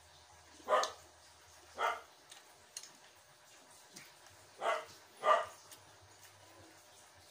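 A dog barking four times in short single barks: once about a second in, again about two seconds in, then a quick pair near the end.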